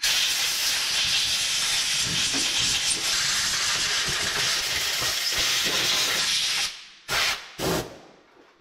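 Compressed-air blow gun hissing in one long steady blast, then two short puffs near the end, blowing out a truck's wiring connections.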